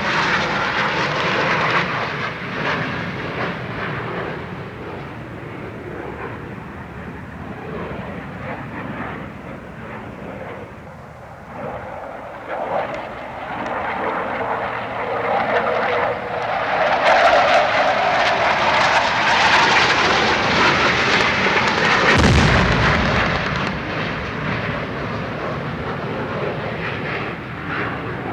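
Aircraft engines passing overhead in an air-strike sound effect, the noise fading and then swelling again. One sudden, deep boom comes about 22 seconds in.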